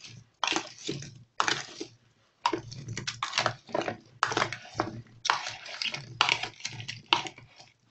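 Small whole peeled onions coated in salt and spices being stirred with a metal spoon in a plastic bowl: a run of wet scraping, tumbling strokes as the onions roll against each other and the bowl, with short pauses between strokes.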